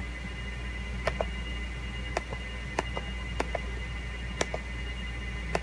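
Computer pointer-button clicks: six double clicks spread about a second apart, each a sharp press followed a split second later by the release.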